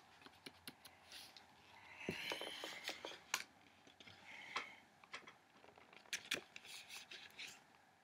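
Quiet rustling and scattered sharp clicks as a paper picture book is handled close to the microphone, its page gripped and moved.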